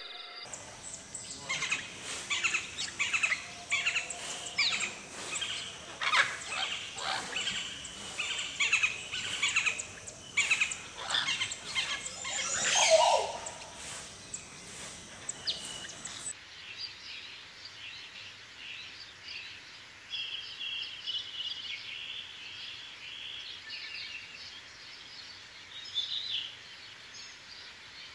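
Birds chirping and calling in a busy, dense chorus, with one louder call sliding down in pitch a little before halfway. A little past halfway the background changes abruptly to quieter, sparser bird chirps.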